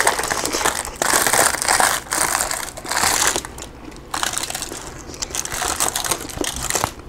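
Crispy-skinned roast chicken torn apart by hand on an aluminium-foil-lined tray, the skin crackling and the foil crinkling in several rough bursts, loudest in the first few seconds.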